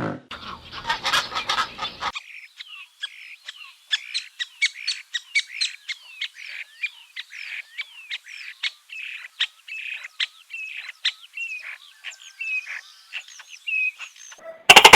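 A bird chirping and calling in a rapid string of short notes and quick sliding whistles mixed with clicks. It follows a harsher, noisy call in the first two seconds and is cut off by a loud burst at the very end.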